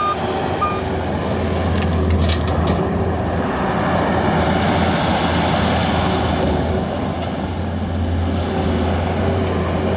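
New Holland L225 skid steer's diesel engine running steadily under load as the machine is driven. A short backup-alarm beep sounds just under a second in.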